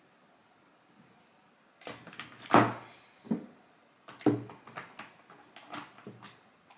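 A run of knocks and clicks from objects being handled by hand. The loudest come about two and a half seconds in and again just after four seconds.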